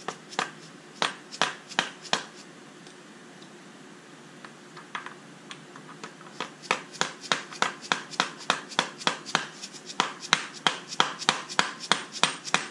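Orange plastic mallet tapping a socket set on a new IMS bearing, driving the bearing into its bore in a 2001 Porsche Boxster S engine. A few sharp taps, a lull with only light ones, then steady tapping about three a second from about six seconds in.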